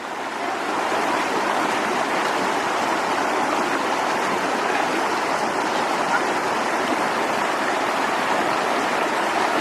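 Mountain creek water rushing steadily over rocks, swelling over the first second and then holding even.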